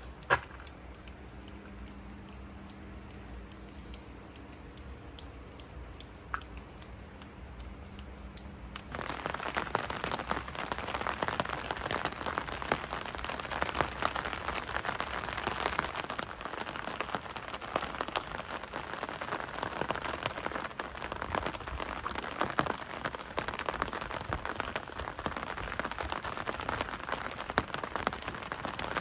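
Rain falling. At first it is scattered drops with a faint low hum. About nine seconds in, it turns abruptly into a louder, dense, even rain noise that holds steady.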